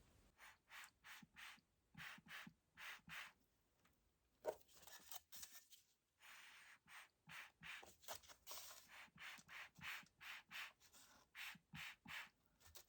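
Faint, quick scraping strokes, about two to three a second, in short runs with brief pauses.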